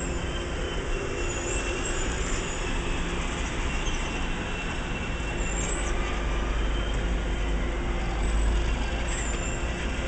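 Passenger train coaches rolling slowly past, a steady low rumble of steel wheels on rail, with faint high wheel squeals a few times.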